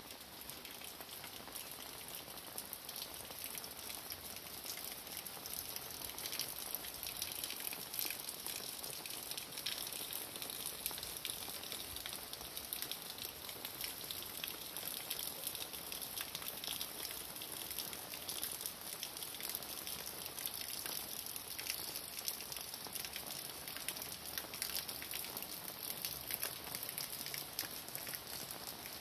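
Steady rain falling: a dense patter of many small drop impacts with no let-up, growing a little louder several seconds in.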